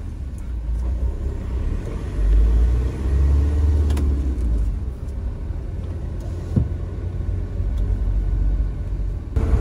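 Engine and road rumble inside the cabin of an SUV being driven, deep and steady, swelling louder for about two seconds a couple of seconds in.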